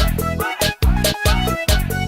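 Instrumental dance music with a heavy, pulsing bass beat and a synth lead melody over it, no vocals.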